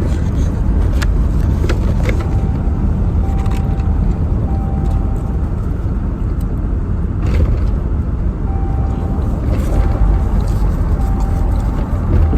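Steady low rumble of street traffic, with a mid-pitched beep repeating about once a second in two runs and a few faint sharp clicks.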